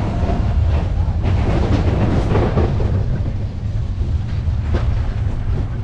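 Big Thunder Mountain Railroad mine-train coaster cars running along the track: a steady low rumble with short bursts of rattling clatter, and wind buffeting the microphone.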